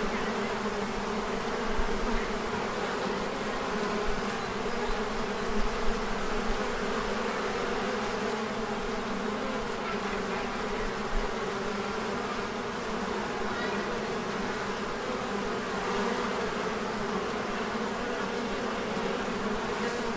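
Honeybee hive buzzing: a steady, many-layered drone of a mass of bees, with bees flying around the hive and a few brief louder moments.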